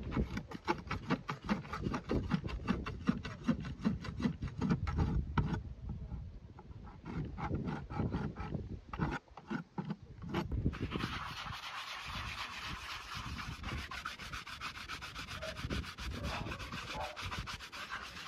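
Farrier's rasp worked over a horse's hoof wall on a hoof stand, finishing a newly shod hoof. The strokes are quick and regular at first, about four a second, then scattered. From about halfway they turn into a lighter, hissier, steady rubbing.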